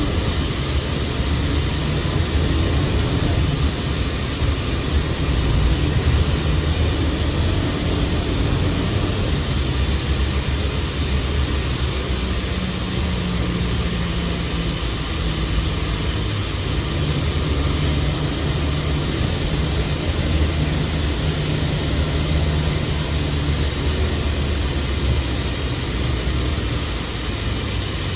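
Mercedes-Benz OC500LE CNG bus engine and ZF automatic drivetrain running steadily with a loud rumble, its low tone shifting in pitch a couple of times.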